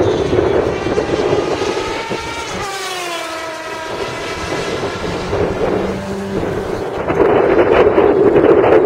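Racing superbike engines at high revs passing trackside, the Suzuki GSX-R1000's inline-four among them. The pitch slides down between about two and four seconds in as the bikes pull away, and the engine noise swells again about seven seconds in.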